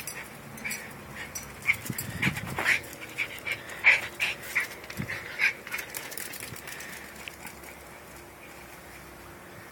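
Jack Russell terrier making about a dozen short, sharp, high yips and pants in quick succession, dying away after about five seconds.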